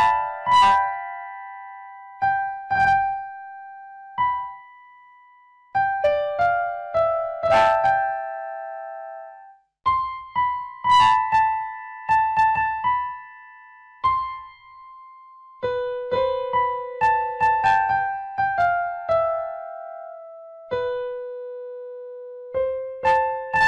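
Background music: a slow electric piano melody, notes struck and left to fade, in short phrases with brief pauses between them.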